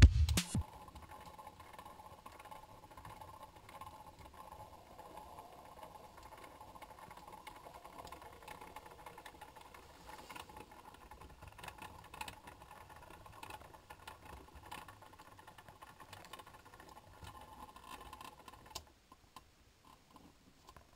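Faint steady hum with light rattling from the small electric motor of a rotating display turntable. It stops abruptly about two seconds before the end. The tail of electronic intro music is heard in the first half second.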